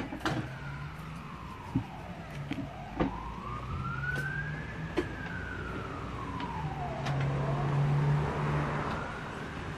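A siren wailing, its pitch rising and falling slowly about every four to five seconds, with a few sharp clicks over it.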